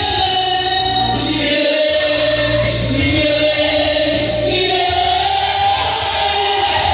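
Church congregation singing a gospel song together in chorus, over a steady, loud low-pitched accompaniment.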